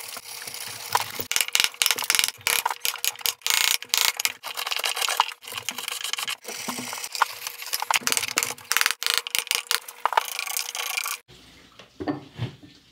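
Hand gouge carving a round recess into a maple board: a rapid, dense run of scraping, cutting strokes as chips are shaved out. Near the end it gives way to a few softer knocks.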